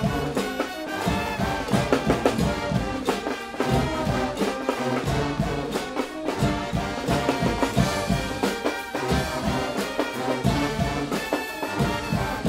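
Guggenmusik carnival band playing: massed trumpets, trombones and sousaphones over a drum kit with frequent drum and cymbal hits.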